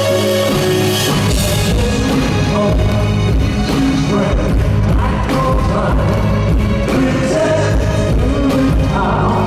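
Live band music with a male lead vocal singing over drums, bass and electric guitar, played loud through an arena's PA. The full band's low end and beat come in about half a second in.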